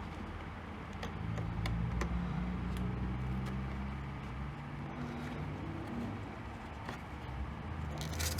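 A low steady hum runs under light clicks of plastic as the welding helmet's lens cover screen is handled, with a cluster of clicking and rustling near the end.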